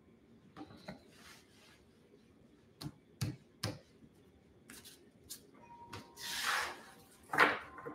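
Tarot cards being laid out on a table: a few light, sharp taps as cards are set down, then a longer soft rubbing swish of cards or hand sliding across the tabletop near the end.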